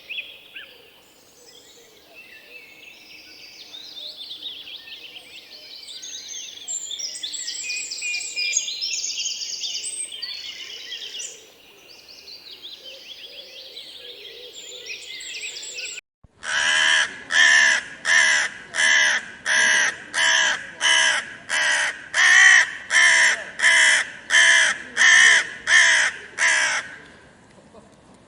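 Birds chirping and twittering in high, busy calls. After a sudden cut, a single bird gives a loud harsh call, repeated evenly about fifteen times at a little over one a second.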